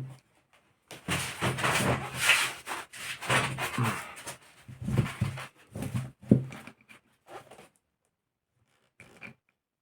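Tools and small engine parts being handled on a work table: a few seconds of rattling and rustling, then scattered clicks and knocks.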